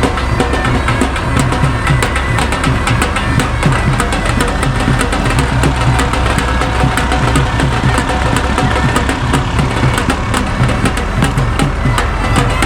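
Background music with drums over the steady running of a tractor-driven wheat thresher.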